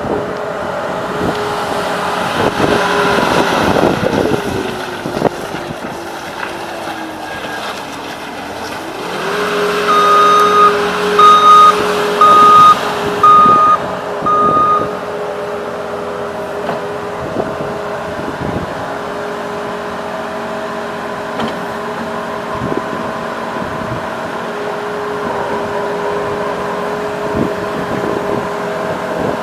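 Case SV300 skid steer's diesel engine running at high revs. Its pitch sags for several seconds and then climbs back. The backup alarm beeps five times about a third of the way in, and clunks and knocks from the machine are heard throughout.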